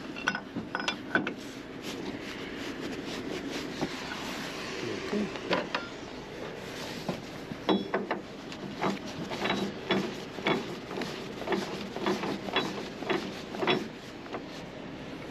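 Steel tow-bar fittings clinking and knocking as they are tightened with a wrench and fitted onto a truck's front towing point. A quicker run of sharp metallic clicks comes in the second half, some with a short ring, over a steady background noise.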